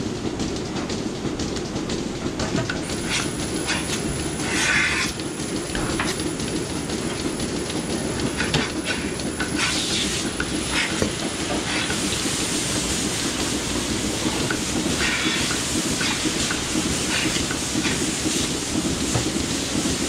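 Steady mechanical rumbling with continual irregular clicking and rattling.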